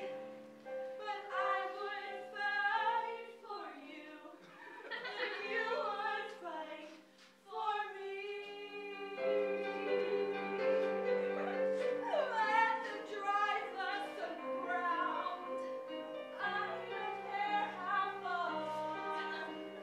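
Live female vocal singing a musical-theatre song with keyboard accompaniment, briefly dipping about seven seconds in.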